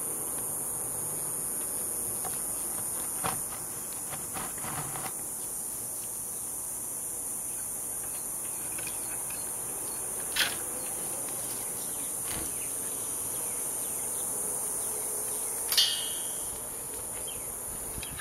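Steady high-pitched drone of insects, unbroken throughout, with a few sharp clicks, the loudest one late on.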